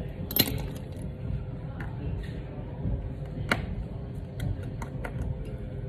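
Small sharp clicks and taps of a hand tool and small parts on an opened iPhone XR and the workbench: two louder clicks, about half a second in and about three and a half seconds in, with fainter ticks between, over a steady low background rumble.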